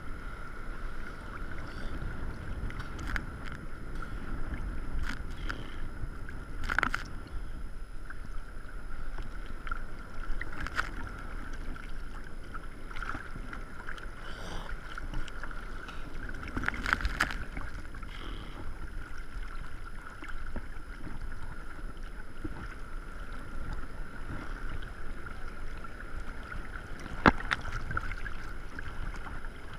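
Ocean water sloshing and lapping against a camera held at the water surface, with a low rumble of moving water and wind on the microphone. Sharp splashes hit it a few times, the strongest near the end. A faint steady high tone runs underneath.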